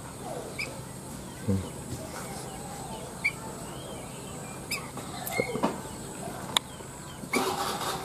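A few short, high chirps from a young caged songbird, spaced a second or more apart, with a couple of sharp clicks and a low thump over a faint steady outdoor background.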